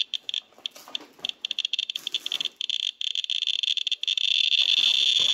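Radiation Alert Inspector Geiger counter chirping with each detected count. The chirps come faster and faster until, about four seconds in, they run together into a near-continuous high tone. This is the count rate climbing steeply as the counter is brought to radioactive sample containers.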